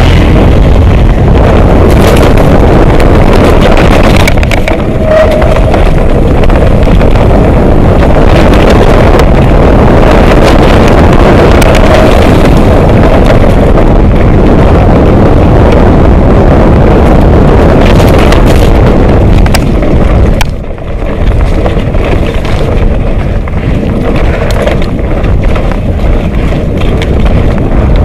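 Loud wind buffeting on a bike-mounted camera's microphone during a fast mountain-bike descent, with knocks and rattles as the bike jolts over rough ground. The noise dips briefly about three-quarters of the way through.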